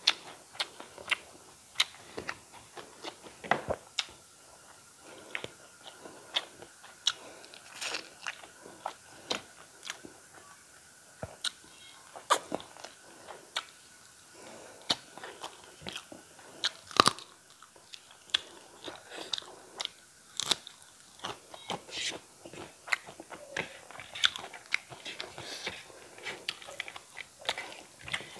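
Close-miked eating by hand: chewing and crunching with many sharp mouth clicks and smacks, irregular, several a second.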